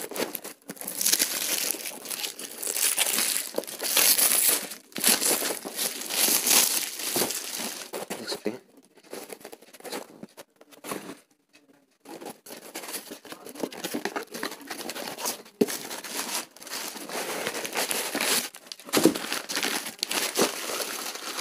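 Newspaper wrapping and a cardboard firecracker box being handled and unwrapped: paper crinkling and tearing in irregular bursts, with a quiet pause of a few seconds about halfway through.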